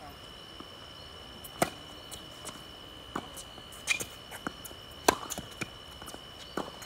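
Tennis rally on a hard court: a tennis ball struck by rackets and bouncing, a series of sharp pops spaced about a second or more apart, the loudest about a second and a half in and about five seconds in. A steady high-pitched whine runs underneath.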